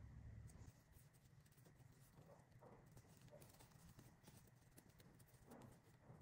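Near silence, with faint scattered ticks and soft rustling from a crochet hook working paper yarn.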